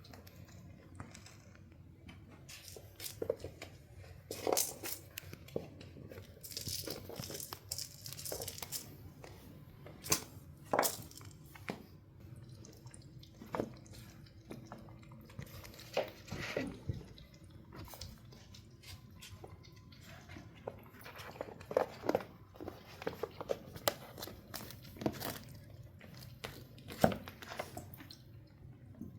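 Maine Coon kittens playing and play-fighting: irregular scuffling, scratching and crinkling, with scattered sharp knocks and thumps.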